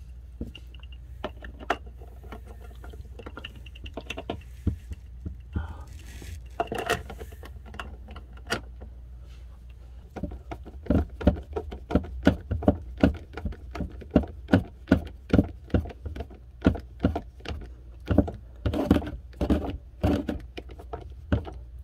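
Plastic parts of an RV toilet's foot-pedal assembly clicking as the spring cartridge is fitted onto the pedal hub. About ten seconds in, a hand screwdriver starts driving a screw into the cartridge, with a quick run of clicks at about two or three a second.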